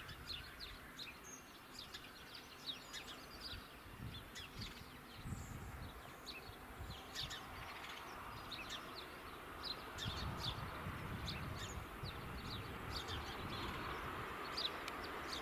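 Small birds chirping repeatedly over gusts of wind on the microphone. From about halfway, the faint sound of an approaching diesel multiple-unit train grows steadily louder.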